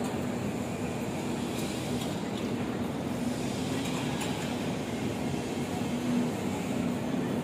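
Airport terminal hall ambience: a steady rumble with a faint hum running through it.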